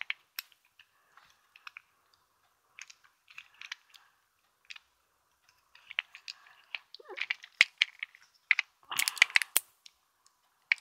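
Plastic Fidget Cube toy being worked by hand: scattered clicks and clatter from its buttons, switch and dials, sparse at first, then coming thick and fast in the second half, with the loudest run of clicking near the end.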